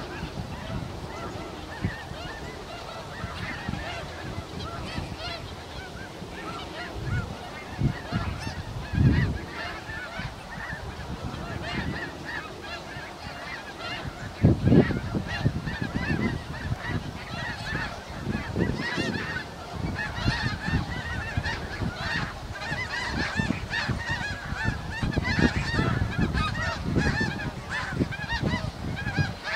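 A large flock of snow geese calling: a dense, continuous chorus of overlapping high-pitched honks. Low rumbles swell now and then, loudest about nine and fifteen seconds in.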